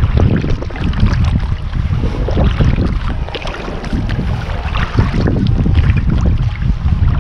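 Strong wind buffeting the microphone, over irregular splashing of a kayak paddle and choppy water against the hull while paddling into a headwind.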